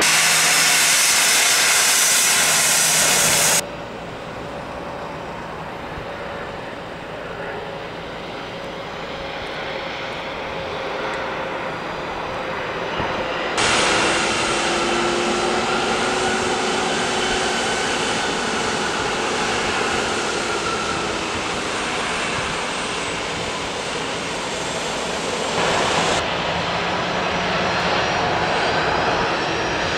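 Business-jet turbofan engines heard in a series of cut-together clips. First comes a loud, hissing jet. From about four seconds in, a Bombardier Challenger 850's engines are heard as it lands, a softer steady whine. From about fourteen seconds, a Dassault Falcon 8X's three turbofans whine at taxi power, with the pitch drifting slightly.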